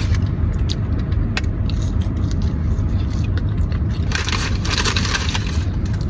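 Steady low rumble inside a car's cabin, with scattered crinkling and crunching noises from a meal being eaten. There is a denser burst of crinkling a little past the middle.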